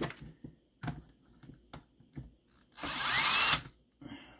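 A cordless drill/driver runs in one short burst of under a second, its motor whine rising in pitch. It is preceded by a few light clicks of plastic parts being handled.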